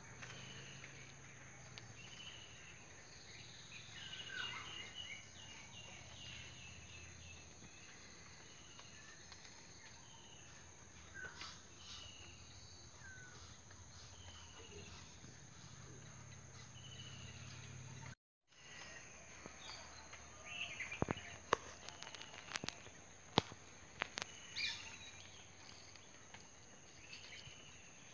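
Small birds chirping and calling over a steady high-pitched insect drone, all faint. The sound cuts out briefly about 18 seconds in, and a few sharp clicks follow a few seconds later.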